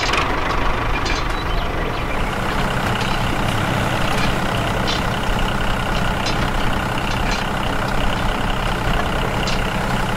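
Tractor diesel engine running steadily at low speed, with faint ticks now and then.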